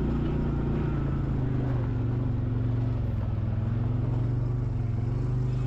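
ATV engine running steadily under way on a rough dirt track, its note sagging a little in the middle and picking up again near the end.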